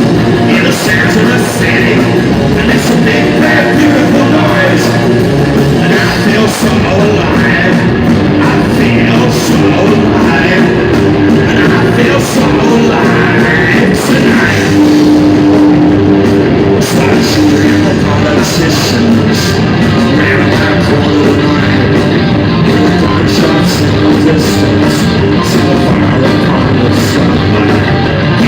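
Live rock band playing loud and without a break: electric guitars and drums with steady cymbal strokes, and a singer's voice in the mix.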